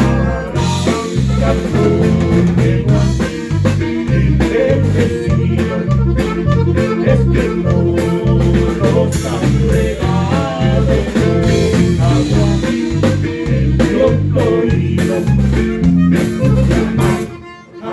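Live band playing an upbeat song at a sound check, with a repeating bass line under it; the music dips briefly near the end.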